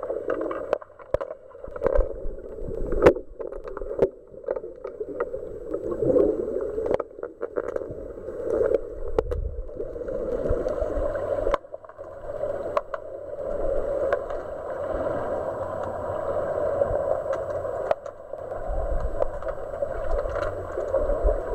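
Underwater sound picked up by a camera submerged in a swimming pool: a steady muffled wash of water noise, with scattered sharp clicks and knocks from underwater hockey sticks and the puck striking the pool floor.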